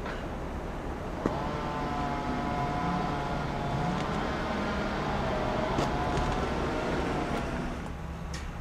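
A steady mechanical whine with several overtones, lasting about six seconds over a low rumble; it starts with a click about a second in and fades out near the end.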